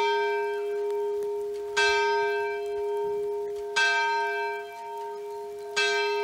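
A single church bell tolling, struck three times on the same note two seconds apart, each stroke ringing on into the next.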